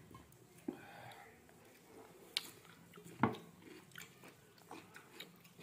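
Faint sounds of eating by hand: fingers breaking soft ragi mudde and working it into curry on a steel plate, with a few sharp clicks, the loudest about three seconds in.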